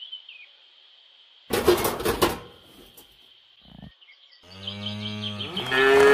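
Faint birdsong, then a short loud noisy burst about a second and a half in. From about four and a half seconds several cattle moo together in low overlapping calls, and applause swells in near the end.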